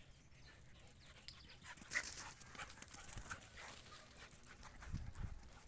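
Dogs at play, faint and scuffling, with short clicks and rustles, a brief louder rustle about two seconds in and a couple of low thumps near the end.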